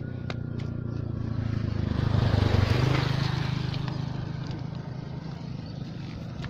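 Motorcycle engine passing close by, growing louder to a peak about two to three seconds in and then fading to a steady hum.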